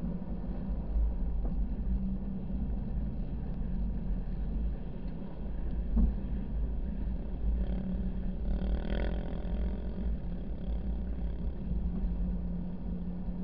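Vehicle driving on sand, heard from a camera on its hood: a steady engine hum over heavy low wind rumble, with a single thump about six seconds in and a brief louder swell of noise near nine seconds.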